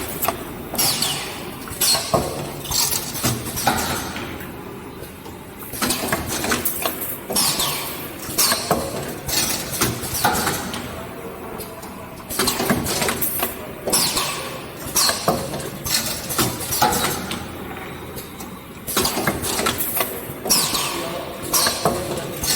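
Workshop machinery running, with irregular metallic knocks and clanks in clusters every second or two, some followed by short falling high squeaks.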